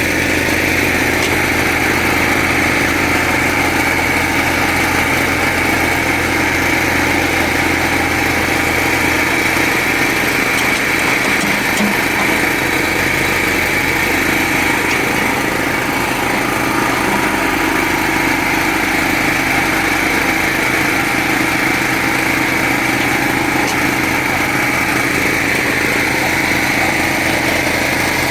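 Small Caterpillar excavator's diesel engine running steadily, with its low hum thinning out about nine seconds in.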